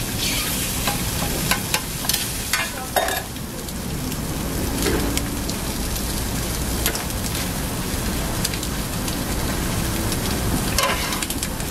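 Food sizzling on a hot flat-top griddle: a meat patty, a split sausage and a fried egg frying in oil. Metal tongs and spatula click and scrape on the griddle several times in the first three seconds.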